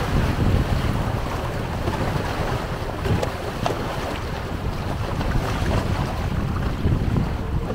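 Wind buffeting the microphone in an uneven low rumble, over river water moving around a raft, with a few faint knocks.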